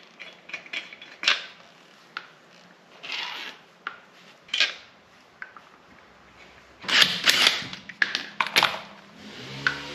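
Scattered clicks and knocks of tools and metal parts being handled, with a burst of louder clanks about seven seconds in.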